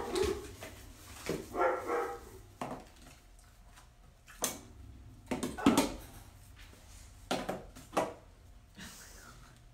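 A dog barking and yipping: several short barks and higher calls, spaced a second or two apart.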